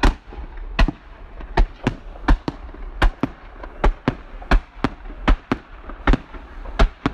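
Fireworks display: a fast, irregular series of sharp bangs, about two to three a second, over a steady low rumble.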